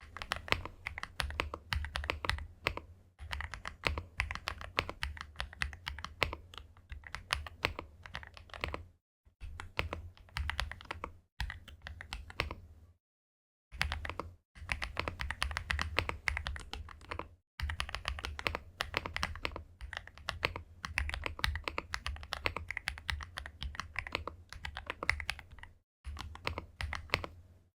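Typing on a Weikav WK68 gasket-mount 65% mechanical keyboard: fast, continuous runs of keystrokes broken by a few short silent gaps.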